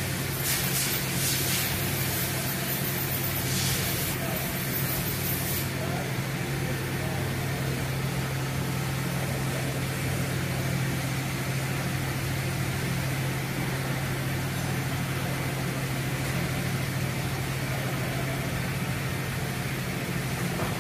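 Steady hum of machine-shop equipment running, with several hissing bursts in the first few seconds that stop about six seconds in.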